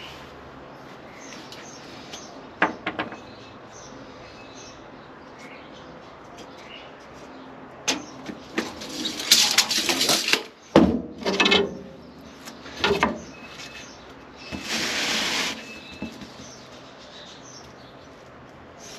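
Handling and work noises: a couple of sharp knocks, then a cluster of knocks and scraping, and a longer scrape of about a second near the end, over a hiss with faint bird chirps.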